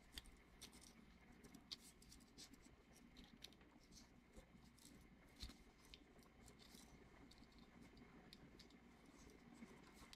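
Faint scratching and small irregular clicks of a small screwdriver turning the screws of a screw-terminal block, tightening wires into it.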